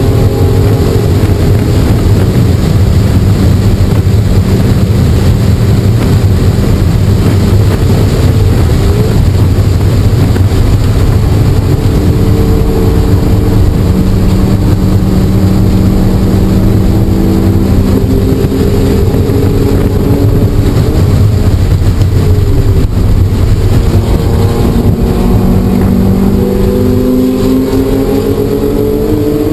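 A car's engine under hard track driving, heard from inside the cabin. Its pitch holds, drops and climbs again with throttle and gear changes, and rises steadily near the end as the car accelerates.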